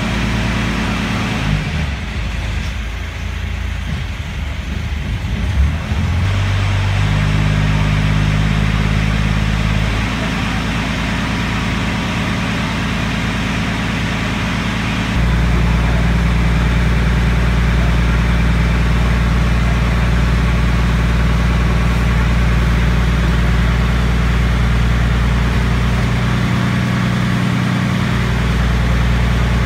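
Ferry's engine running steadily, heard from inside the cabin. The engine note shifts about seven seconds in and gets louder about halfway through as the boat picks up speed.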